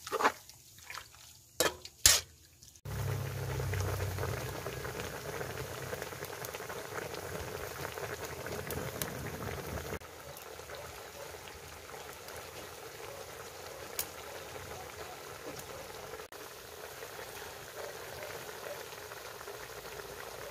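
Pork steak in an oyster-sauce and soy braising liquid boiling in a wok, bubbling steadily, a little softer from about halfway. In the first three seconds a few sharp knocks of the spatula against the wok as it is stirred.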